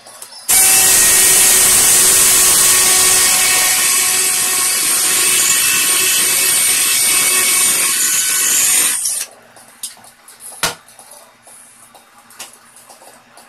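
Makita power drill boring through a wooden furring strip into the wall behind it, running steadily for about eight and a half seconds and stopping suddenly. A single sharp click follows about a second and a half later.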